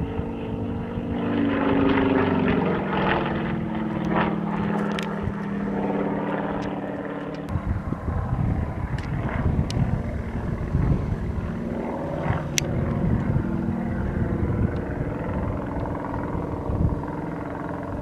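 Yak-50's nine-cylinder radial engine and propeller droning steadily overhead during aerobatics. From about eight seconds in, low rumbling on the microphone joins it, and a few sharp clicks sound.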